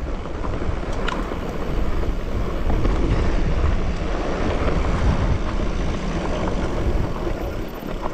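Mountain bike riding along a dirt trail: steady wind buffeting the microphone over tyre and trail rumble, with a couple of sharp clicks, one about a second in and one near the end.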